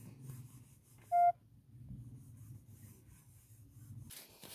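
A heated steel saucepan sliding and rubbing over cloth as it is used as an improvised iron to press a shirt. A short electronic beep sounds once, about a second in.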